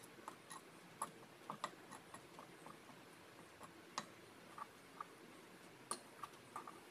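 A spoon knocking and scraping against a small clay dish while prawns are mixed with spices: scattered light clicks and taps at an uneven pace, the sharpest about 1, 4 and 6 seconds in.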